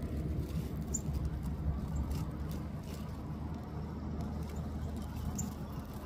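Steady low background rumble, with faint scattered clicks and two brief high chirps, about a second in and near the end.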